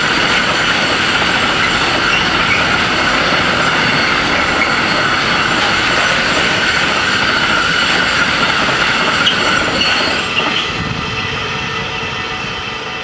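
Container wagons of a freight train rolling past at speed over the rails, a loud steady rumble of wheels with a high squeal running through it. About ten seconds in the last wagon passes and the noise drops away.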